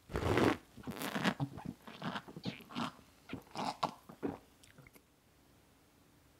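Close-miked mouth sounds of a person eating or drinking: a run of irregular short noises for about four and a half seconds.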